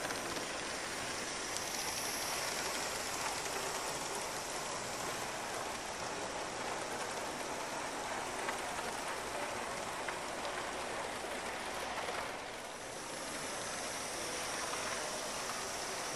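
Large-scale model steam locomotive and train running along the track: a steady hiss with the rolling of wheels on the rails, easing briefly about twelve seconds in.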